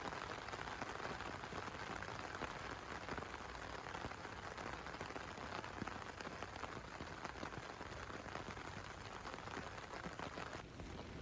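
Steady patter and hiss of water, like rain or a rushing stream, with many tiny drop-like clicks. The highest part of the hiss drops out abruptly shortly before the end.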